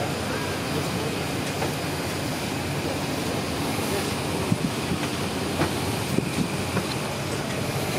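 Steady rushing air-conditioning noise in an airliner cabin, with a few light knocks and clicks around the middle.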